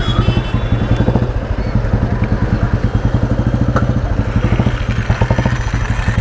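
1991 Royal Enfield Bullet Standard 350's single-cylinder four-stroke engine running steadily at low revs, with an even, rapid beat of exhaust pulses.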